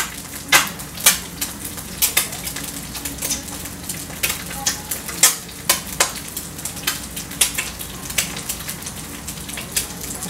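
An egg frying in a skillet: a steady sizzle broken by frequent sharp, irregular pops and crackles.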